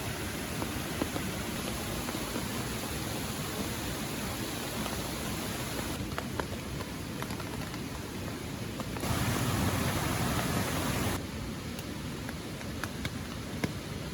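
Rain falling steadily, mixed with the rush of a river and waterfall: an even hiss with a few faint drop taps. The sound changes abruptly about six, nine and eleven seconds in, and between nine and eleven seconds it is a louder, deeper rush of water.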